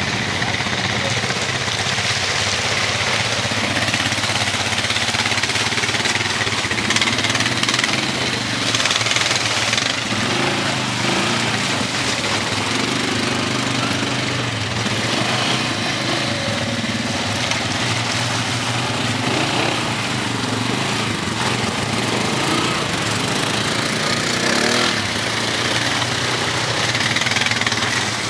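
Several four-wheel-drive ATV engines running at low speed, their pitch rising and falling as the riders throttle up and back off over rocks.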